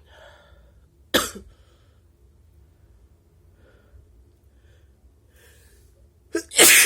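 A person sneezing: one short, sharp sneeze about a second in, then soft breaths, then a much louder explosive sneeze near the end with a brief catch just before it.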